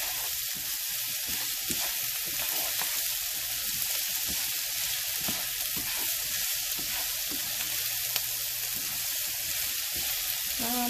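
Diced onion, carrot and celery sizzling steadily in a frying pan, stirred with a spoon that scrapes and taps lightly against the pan.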